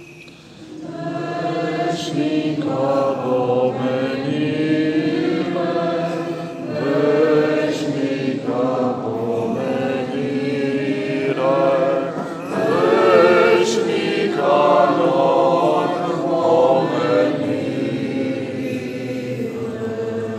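A choir singing Romanian Orthodox liturgical chant, a sustained sung hymn of the memorial service, with phrases that swell and briefly pause about every six seconds.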